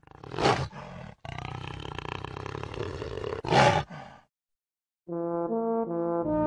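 Two loud lion roars about three seconds apart, with a rough, noisy stretch between them, laid in as sound effects. After a second of silence a brass fanfare begins, stepping through short held notes.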